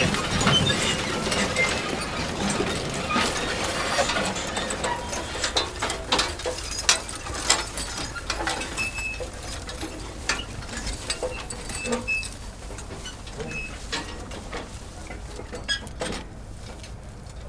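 Manure spreader's mechanism clattering and rattling, with many irregular metallic clicks over a low rumble. The rattling is dense at first, then thins out and grows steadily fainter.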